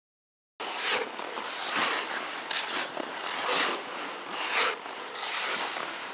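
Ice hockey skate blades scraping and carving on the ice: a series of rough scrapes about once a second, starting suddenly after half a second of silence.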